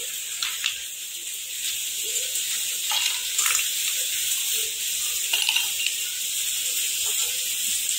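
A few faint clinks of ice cubes being dropped into ceramic mugs, over a steady hiss.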